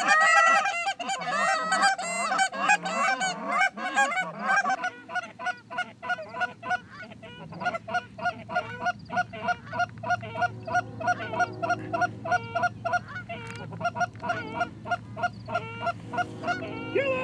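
Hunters blowing Canada goose calls: a fast, overlapping flurry of honks and clucks for the first few seconds, then steady clucking at about three notes a second, calling in geese that are gliding toward the decoys.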